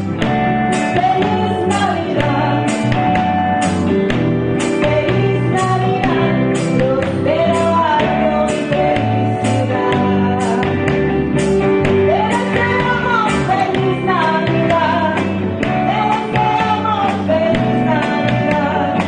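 A woman singing a song into a microphone, backed by a live band with drums and electric guitar. The drums keep a steady beat of about two cymbal strokes a second.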